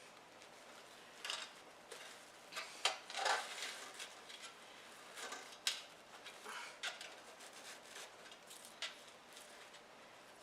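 Ribbon and craft materials rustling and crinkling in the hands, with scattered small clicks and taps, as a bow is handled and fastened in place. The sounds come in irregular bursts, loudest about three seconds in.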